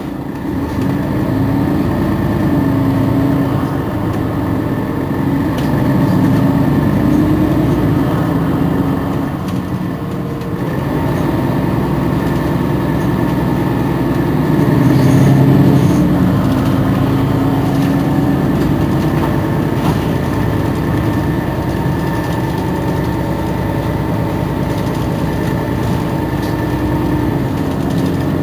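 Mercedes-Benz Citaro G articulated bus's diesel engine running steadily, its drone rising and falling a little in pitch and loudness, with a thin steady high whine alongside.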